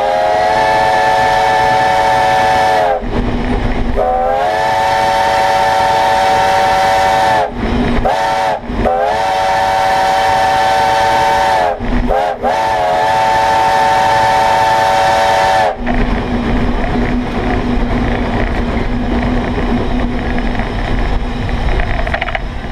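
Steam locomotive's multi-note chime whistle, several pitches sounding together, blown for a road crossing in long blasts with short ones between. The pitch sags as each blast starts and stops. After the last blast cuts off, about three-quarters of the way through, only the cab's steady rumble and steam hiss remain.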